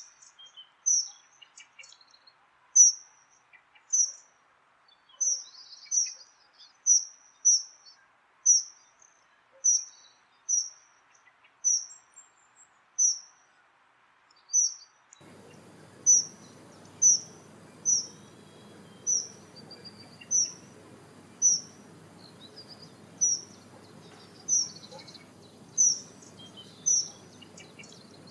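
Dunnock giving a repeated high, thin call: a single short note about once a second. A faint steady low background noise comes in about halfway through.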